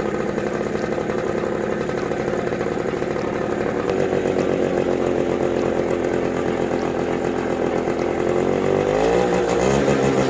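Small 50cc scooter engine, stock and cold after weeks unused, idling steadily; near the end it is revved, its pitch rising and staying a little higher.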